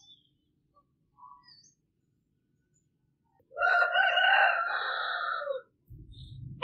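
A rooster crowing once, a single call of about two seconds starting past the middle, with small birds chirping faintly around it.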